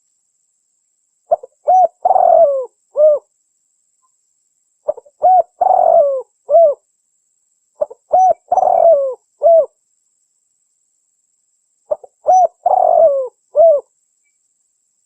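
Female spotted dove cooing: four phrases a few seconds apart, each a couple of short coos, a longer rolling coo, and a final coo.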